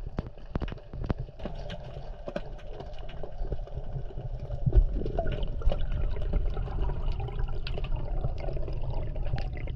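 Underwater sound picked up by a submerged camera: a muffled low rush of water with many sharp scattered clicks, growing louder about halfway through as a freediver rises and bubbles stream past.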